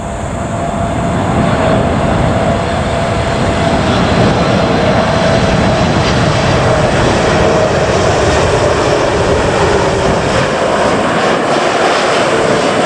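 Boeing 747-8 freighter's four GEnx turbofan engines passing low overhead on final approach: a loud jet roar that builds over the first couple of seconds, with a whine that slowly drops in pitch as the aircraft goes by.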